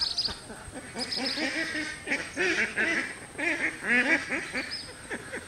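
Ducks quacking in a run of repeated harsh calls, with quick high chirps of small birds at the start and near the end.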